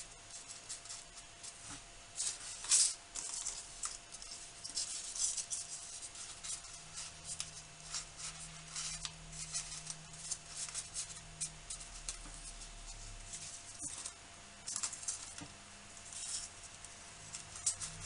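Folded origami paper rustling and crinkling in short, irregular crisp bursts as paper modules are handled and their points pushed into one another's pockets.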